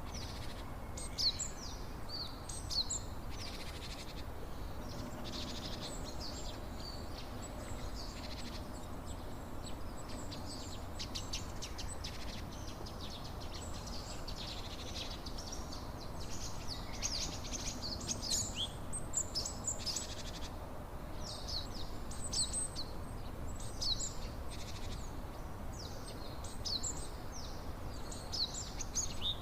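Small songbirds chirping and singing, with many short high calls and trills all through, over a steady low rushing background.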